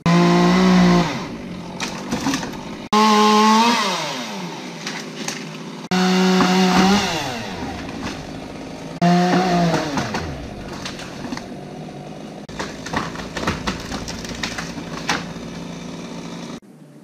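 Chainsaw revved to full throttle in four bursts about three seconds apart, the engine pitch falling away after each one. It then runs lower and rougher with crackling until it cuts off shortly before the end.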